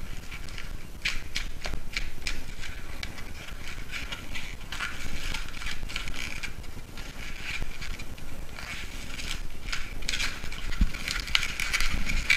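Latex twisting balloon squeaking and rubbing under the fingers as a red balloon is twisted into small bubbles, in an uneven run of short squeaks.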